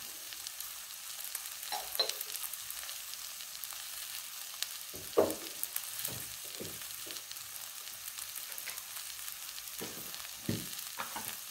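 Red chillies, onion and turmeric frying in hot oil in a metal kadai, a steady sizzle with a few short knocks.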